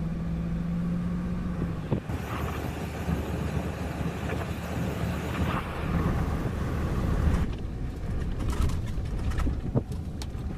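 Road noise inside a moving car's cabin: a steady engine drone and tyre rumble. Near the end, as the car rolls onto a dirt track, a few sharp knocks and rattles come through.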